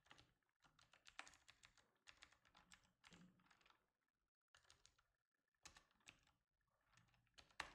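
Faint typing on a computer keyboard: quick runs of key clicks broken by short pauses, with a gap of about half a second near the middle.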